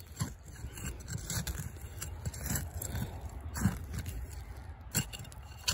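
Gloved hand scraping and clawing at loose soil, dirt crumbling and falling, with a few sharp clicks among the scratching.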